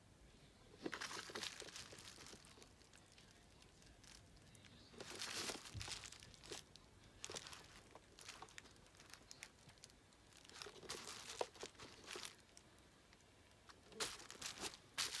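Bubble wrap and plastic crinkling in several soft, separate bursts as a boxed vinyl figure in a clear plastic protector is handled and turned over on it.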